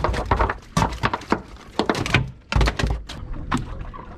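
Several irregular knocks and thuds on a boat, as gear and a netted catch are handled aboard.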